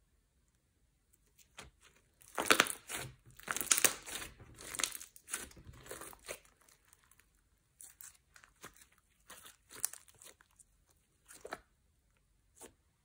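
Slime being kneaded, squeezed and folded by hand, making sticky clicks and pops: a dense run from about two seconds in until about six, then scattered ones later on.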